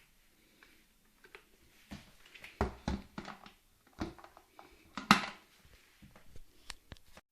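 A series of knocks, clicks and clatters from objects being handled, with a cluster of heavier knocks near the middle and the loudest sharp knock about five seconds in.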